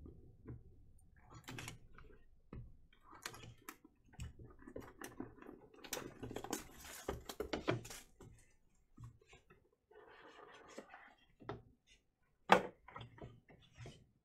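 Cardboard card boxes and a plastic graded-card slab being handled on a tabletop: scattered rubbing, scraping and light knocks, with one sharp click near the end.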